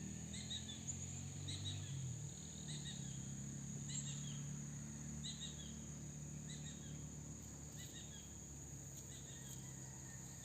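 Outdoor ambience: a steady high insect drone with short bird chirps repeating about once a second, over a low steady hum.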